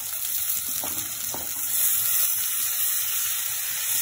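Chopped tomatoes tipped into a hot oiled kadhai of fried onions and garlic, sizzling in the pan as they land. The sizzle grows louder about two seconds in.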